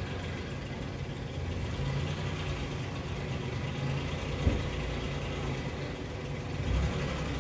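Steady low engine-like rumble in the background, with one light click about halfway through.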